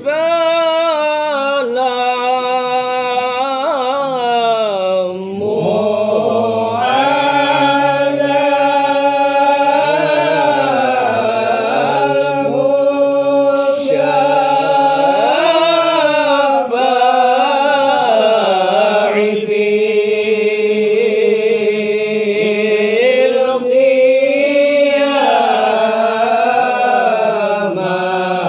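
Men's voices chanting zikir, an Islamic devotional chant, unaccompanied. The melody runs in long held, ornamented phrases with brief pauses for breath.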